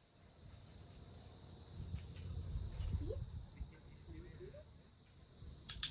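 Steady high-pitched chorus of insects, with a low rumble underneath that swells loudest mid-way. A couple of faint short rising squeaks and a sharp click near the end.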